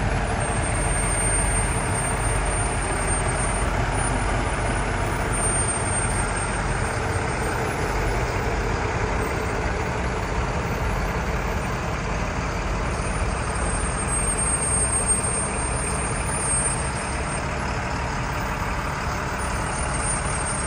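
A heavy vehicle's engine running steadily, with a continuous low rumble.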